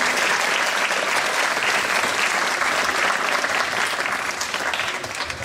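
Audience applauding, a dense steady clapping that eases off a little near the end.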